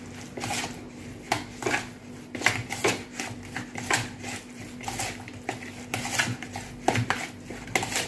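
Hands mixing raw chicken pieces coated in oil and spices in a bowl: irregular wet squishes and light knocks against the bowl, over a faint steady hum.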